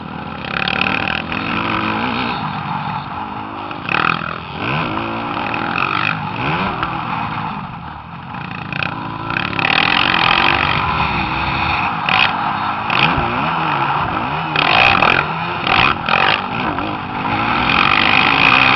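Motocross dirt bike engine revving up and down again and again, its pitch rising and falling as the throttle opens and closes, with short bursts of rushing noise.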